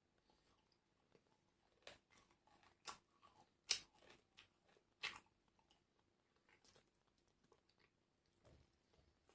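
A person biting and chewing crunchy fried food close to the microphone: a series of sharp crunches, the loudest a little before the middle, with softer chewing between them.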